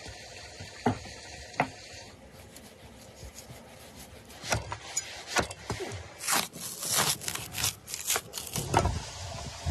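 A knife cutting and scraping along a raw rack of ribs on a wooden cutting board, with the fat layer being ripped back from the ribs. There are two sharp knocks near the start, then from about four seconds in a quick run of short scrapes and rips.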